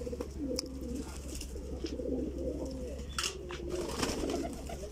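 A flock of domestic pigeons cooing continuously, many birds' calls overlapping, with a few brief wing flaps, the loudest about three seconds in.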